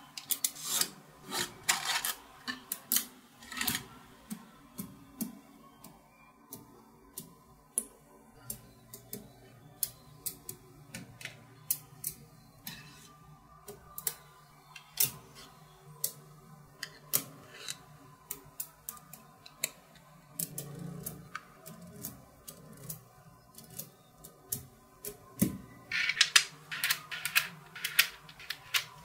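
Small neodymium magnetic balls clicking and snapping against each other as slabs and rods of them are handled and pressed into place. The sharp clicks are scattered, with dense flurries at the start and again near the end.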